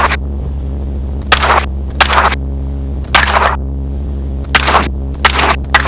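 Gunshots fired from a helicopter at a hog, about seven sharp reports in irregular succession, over the steady low drone of the helicopter.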